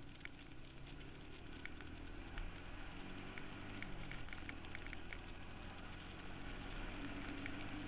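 Suzuki QuadRunner 160 ATV's small single-cylinder engine running, its pitch rising and falling a little around the middle, with scattered light ticks over it.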